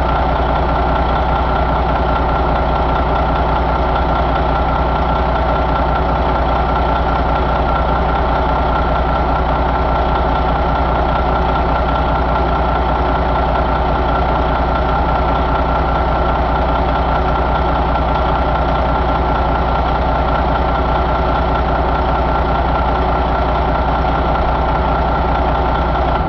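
Detroit Diesel Series 60 14.0-litre inline-six diesel engine running steadily at idle, with a thin steady high whine over the engine note.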